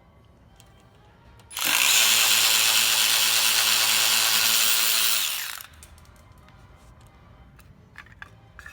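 A power tool runs at one steady speed for about four seconds, starting about a second and a half in and winding down near the end. Light metallic clicks of hand tools come before and after it.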